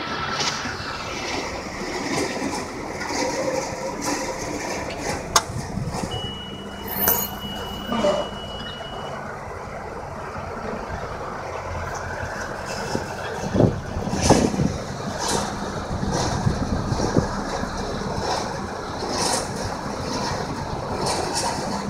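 John Deere 6830 tractor and McHale Fusion 3 baler-wrapper at work, heard from a vehicle following close behind: a steady engine drone with scattered knocks and rattles. A thin high steady tone sounds for about three seconds, a few seconds in.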